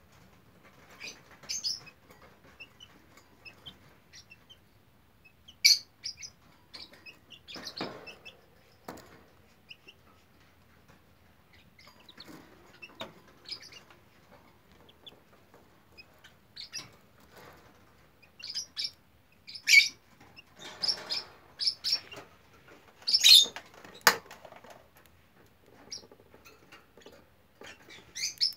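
Young Serama chick, a little over a month old, peeping in short, scattered high chirps. A few sharp taps and some soft rustling come in between.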